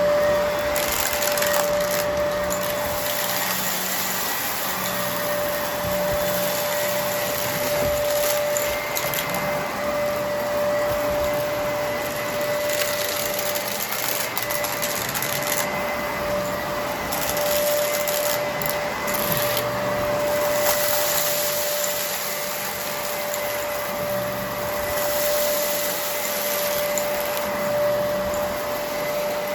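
Vacuum cleaner running with a steady motor whine, its hiss swelling and fading every few seconds.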